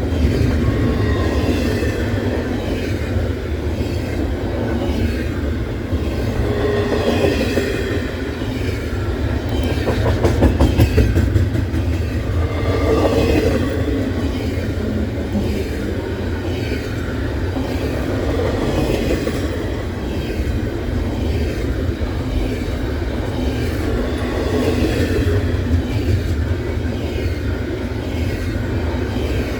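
Freight train rolling past at close range: a steady rumble of wheels on rail with clattering, and a few faint brief squeals from the wheels.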